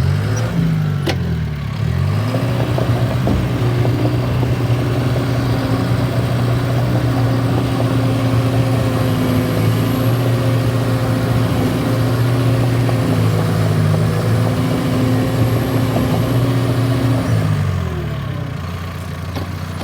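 John Deere 650K crawler dozer's diesel engine working hard while pushing a packed mound. Its pitch dips and climbs back about a second in, holds steady under load, then drops back near the end. A sharp click sounds about a second in.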